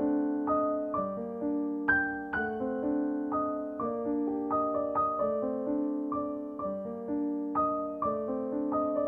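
Background piano music: soft, evenly paced notes that ring and fade, in a gentle repeating pattern.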